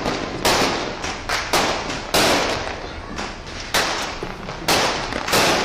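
Fireworks going off in an uneven series of loud bangs, one or two a second, each fading in a trailing echo.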